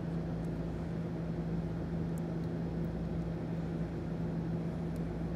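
Steady low background hum of the workspace, with a few faint small metallic clicks as a nut is worked off a battery cable terminal stud by hand.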